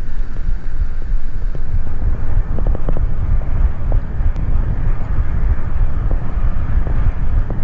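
Wind buffeting the microphone of a bike-mounted action camera while riding at speed, a loud steady low rumble, with a few faint clicks about three seconds in.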